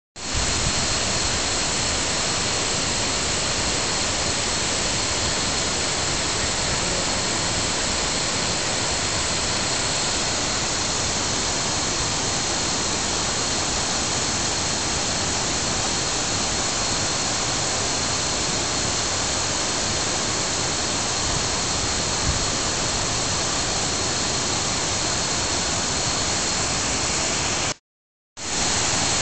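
Mae Ya waterfall's falling water, a loud, steady rush of noise that cuts out for about half a second near the end.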